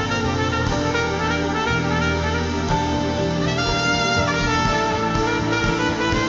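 Trumpet playing a free, prophetic worship solo of held and shifting notes over a sustained keyboard and bass backing.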